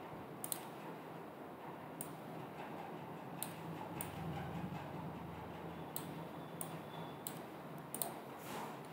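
Computer mouse button clicking about eight times at irregular intervals, over a faint steady room hum.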